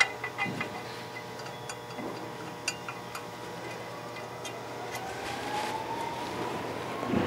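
Light, scattered metallic clicks of clutch pressure-plate bolts being started and turned by hand against the flywheel, over a steady faint shop hum. A faint whine rises slowly in pitch over the last couple of seconds.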